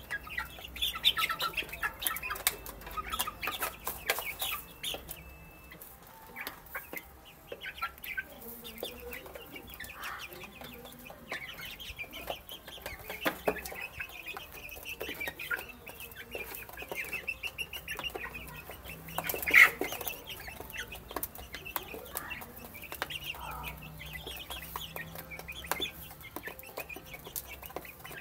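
Young chicks cheeping while feeding: many short, high calls, with scattered clicks and one louder sound about twenty seconds in.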